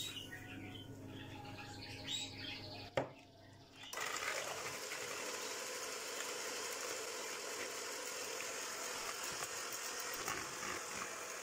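Electric hand mixer beating eggs and sugar in a bowl. It starts about four seconds in and runs at a steady whir. Before that, sugar is poured into the eggs, and there is a short sharp click about three seconds in.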